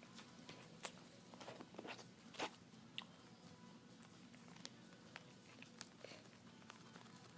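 Faint, irregular clicks and little crunches of a cockatiel's beak nibbling and chewing a metal zipper pull, a few sharper clicks in the first three seconds.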